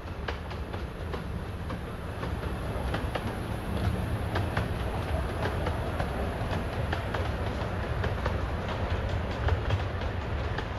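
Narrow-gauge steam train running past with a steady low rumble and many sharp clicks from its wheels on the track. It grows louder about a third of the way in as it draws near.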